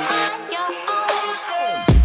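Electronic dance music, dubstep-style, with a synth melody; near the end a falling sweep leads into a loud hit.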